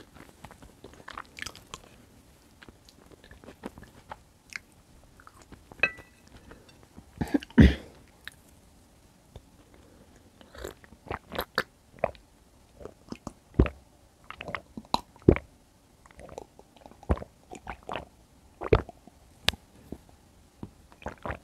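Close-miked eating sounds: chewing of bread with many sharp, wet mouth clicks, and sips of juice swallowed near the middle. There is one louder, dull thump about a third of the way in.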